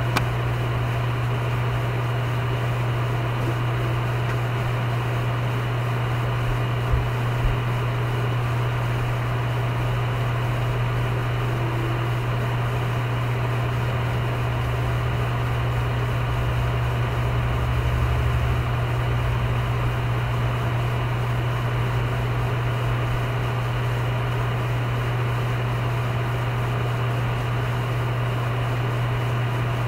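Steady low hum with an even hiss, unchanging throughout, with two soft thumps about seven seconds in.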